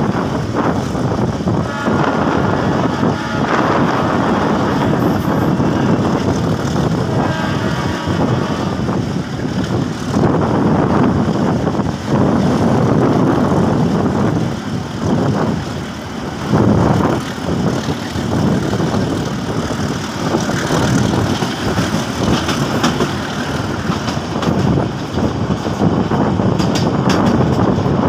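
Train running as it pulls away, a steady rough noise that swells and dips, with faint thin high tones a couple of times early on.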